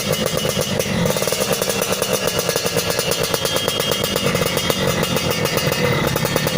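Yamaha F1ZR's two-stroke single-cylinder engine running steadily through its exhaust, a fast, even stream of pulses with only slight swells in revs.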